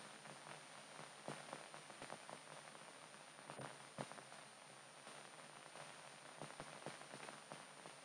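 Near silence: faint hiss with scattered soft crackles, the background noise of an old film soundtrack.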